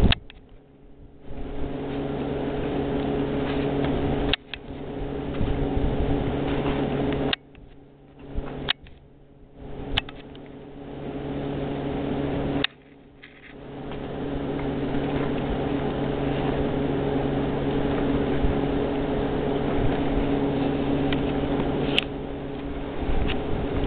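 Steady mechanical hum with a low, even drone, like a running motor, which dips out briefly a few times; a couple of faint clicks.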